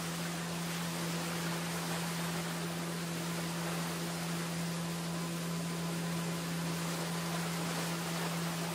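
Small motorboat's engine running at a steady speed: a constant low drone under a steady hiss of wind and rushing water.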